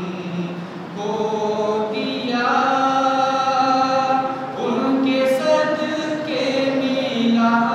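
A man singing an Urdu naat unaccompanied into a handheld microphone, his voice carried in long held, wavering notes.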